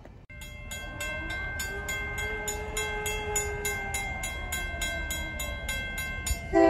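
Railroad grade-crossing bell ringing about three strikes a second as the crossing gates lower, with a fainter locomotive horn sounding in the distance. Near the end the locomotive horn blows loud and close.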